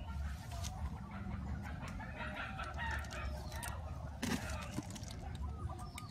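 A chicken calling, with its longest call running from about two to three and a half seconds in, over a steady low rumble.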